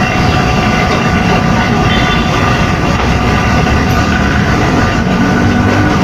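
Refrigeration vacuum pump running steadily, pulling a vacuum on an old refrigerator's sealed system.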